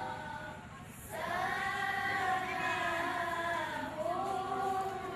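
A group of children singing together in unison, coming in about a second in with long held notes.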